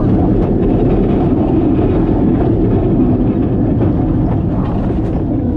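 Steady loud rush of wind on the rider's microphone and rumble of a Gerstlauer Euro-Fighter coaster train running down its 97-degree beyond-vertical drop and on into banked turns.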